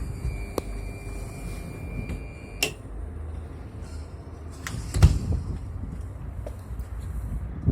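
Refrigerator door fitted with a remote-controlled electronic lock being worked: a sharp click a little under three seconds in and a louder knock about five seconds in, over a low steady rumble.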